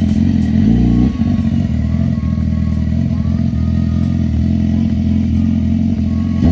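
Sport motorcycle idling close by, its engine running steadily, with a brief rise in pitch from a throttle blip about a second in.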